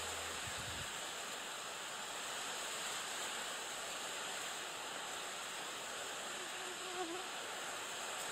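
Insects chirring steadily with an even, high hiss, and a brief faint low call about seven seconds in.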